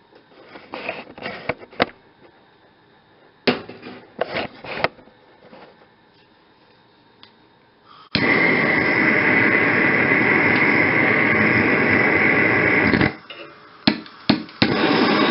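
Propane torch flame starting about eight seconds in and burning with a loud steady hiss for about five seconds, then cutting off abruptly. After a few sharp clicks it burns again near the end. Before it come scattered light clicks and knocks.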